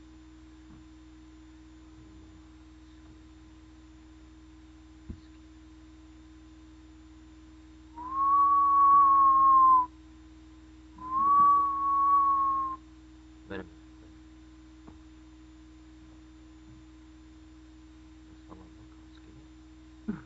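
A person whistling two long, steady notes at the same pitch, each about two seconds, with a short break between them and a breathy edge to the tone. A short click follows soon after, over a faint steady electrical hum.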